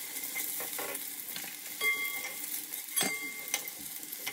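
Katla fish pieces sizzling in hot mustard oil in a metal kadai, with a metal spatula scraping and knocking against the pan as the fried pieces are lifted out. A couple of the knocks ring briefly.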